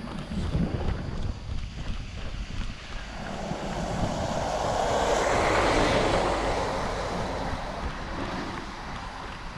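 A motor vehicle passing by, its noise swelling for a few seconds and then fading away, over wind buffeting the camera microphone.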